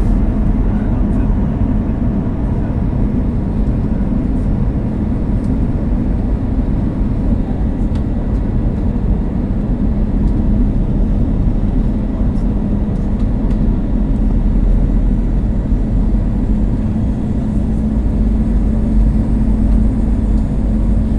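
Steady in-cabin noise of an Airbus A321-200 in flight: a continuous low rush of airflow and CFM56 engine drone, with a constant hum underneath.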